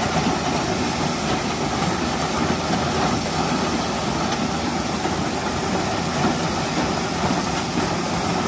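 John Deere No. 5 corn sheller running steadily, belt-driven from a half-scale steam traction engine.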